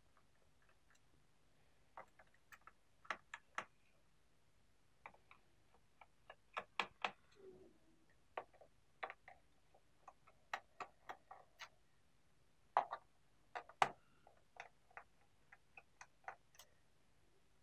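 Faint, irregular light clicks and taps of a small screwdriver working the screws out of a laptop's plastic bottom cover, some clicks coming in quick pairs or runs.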